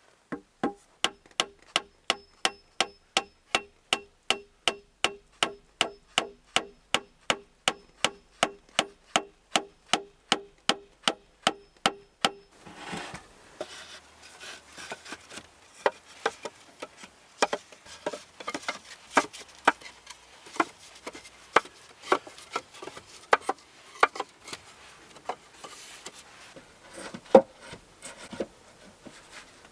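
Quick, even knocks, about three a second, each with a short ringing tone, for about twelve seconds. Then irregular knocks, clicks and rubbing.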